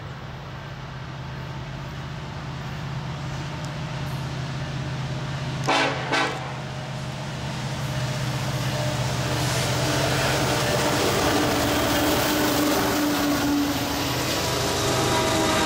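Freight train's diesel locomotive horn giving two short toots about six seconds in, over the steady drone of the locomotive engines. The train grows louder as it approaches, with a rising hiss of wheels on rail from about eight seconds in.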